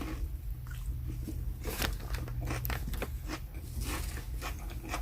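Close-miked chewing of a turkey and spinach flatbread sandwich: wet mouth clicks and small crunches, one after another, over a steady low hum.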